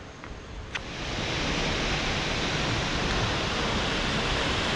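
Waterfall rushing: a steady hiss of falling water that swells up about a second in and then holds even. A single faint click comes just before it swells.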